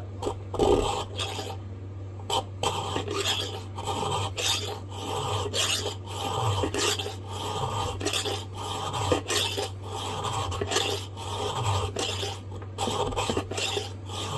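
Round chainsaw file rasping back and forth through the eye hole of a small steel axe head made from a railroad spike, in repeated strokes about one and a half a second, filing the eye out to an oblong shape.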